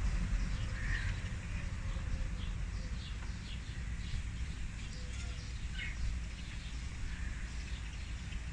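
Small birds chirping, with many short, high, downward chirps scattered throughout, over a steady low rumble of wind on the microphone.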